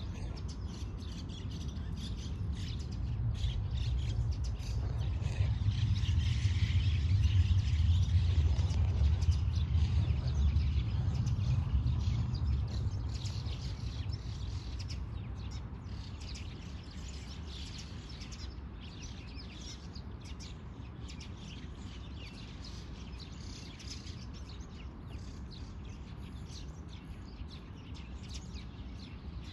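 Birds chirping over and over, with a low rumble underneath that swells a few seconds in, stays loudest for several seconds, then fades.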